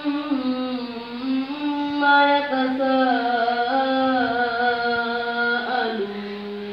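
A single voice singing a slow, melodic chant, holding long notes that step up and down in pitch. It settles on one long, lower held note near the end.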